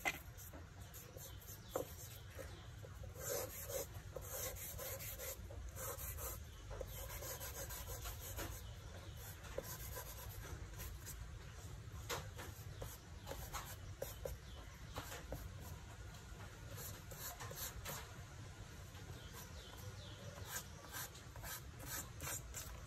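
Fingers rubbing and smudging charcoal on drawing paper, with faint, irregular scratchy strokes.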